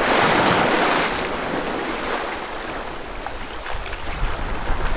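Small waves breaking and washing over a low rock ledge at the edge of a sand beach, loudest in the first second, then settling into a steady wash, with wind on the microphone.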